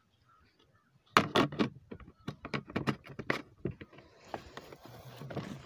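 Quick sharp clicks and light knocks, a dozen or so over about three seconds, followed by a soft rustle near the end.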